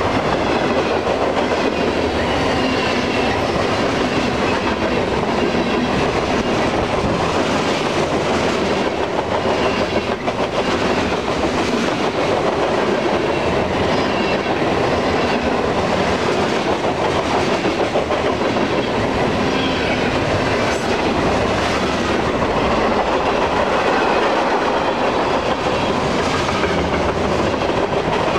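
Freight cars of a manifest train rolling past close by, with the steady rumble and rattle of steel wheels on the rails and a regular clacking over the rail joints.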